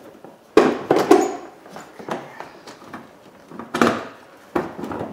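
Plastic cooling fan shroud knocking and scraping against the surrounding parts as it is worked up out of a truck's engine bay. There are a few sharp knocks and clatters, a cluster from about half a second to just past a second in and more near four seconds in.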